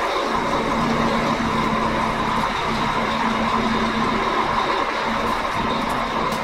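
Truck's diesel engine idling steadily, running to build up brake air pressure.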